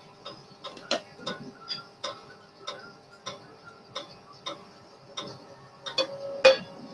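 Sharp, irregular ticks and pops, about one or two a second, from a pan with a little cooking oil heating on a portable gas stove; some ring briefly, and the loudest comes near the end.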